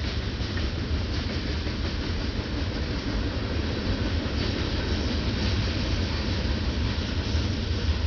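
Freight train of tank cars rolling past: a steady rumble of steel wheels on the rails.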